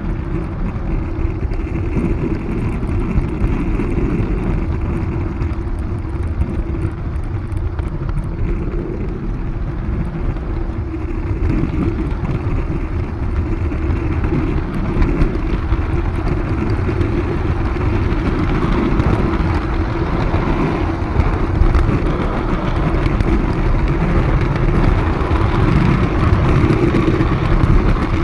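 A 45 mm gauge garden-railway train running along the track, heard from a camera riding on it: a steady rolling rumble from the wheels on the rails, with a constant hum running under it.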